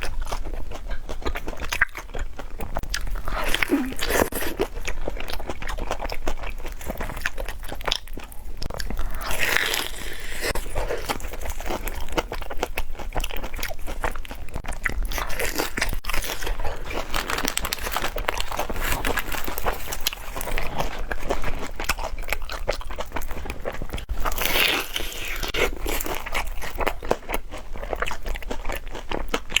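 Close-up eating sounds: crisp biting and crunching into deep-fried glutinous-rice-coated banana, with chewing between bites.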